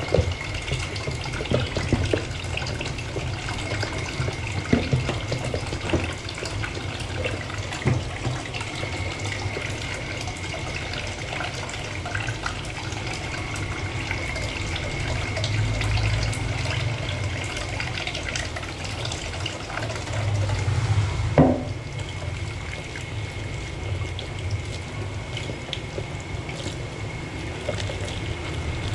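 Kitchen tap running a thin stream into a stainless steel sink while a plastic food container is scrubbed with a sponge and rinsed, with scattered small knocks of handling. One louder clunk about 21 seconds in, and a faint steady high whine beneath.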